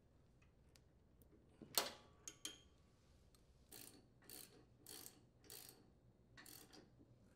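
Socket ratchet clicking faintly as a mounting nut on a riding mower's steering link is tightened. A sharp metal click comes a little under two seconds in, then five short ratcheting strokes about every half second or so.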